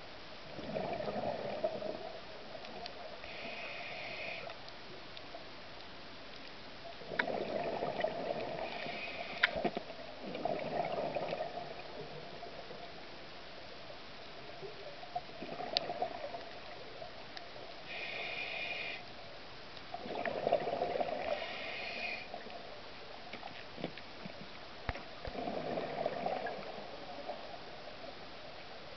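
Scuba regulator breathing underwater: gurgling bursts of exhaled bubbles about six times, a few seconds apart, with short hissing inhalations through the regulator between some of them.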